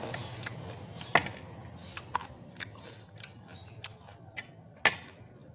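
Eating sounds of roast pig (lechon): scattered short, crisp clicks and crackles as the meat and skin are picked apart by hand and chewed. Two sharper snaps stand out, about a second in and near the end.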